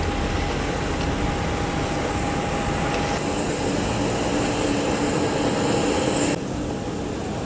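Steady engine noise with a constant whining tone, its high end dropping away abruptly about six seconds in.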